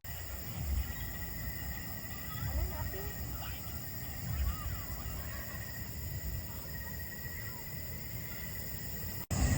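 Outdoor ambience: short, scattered chirping calls over a steady high insect-like drone and a low rumble. It cuts off abruptly near the end.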